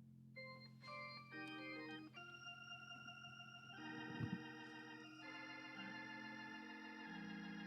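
Hammond-style organ playing held chords over a sustained bass note, with a quick run of short notes about a second in and fuller chords from about four seconds.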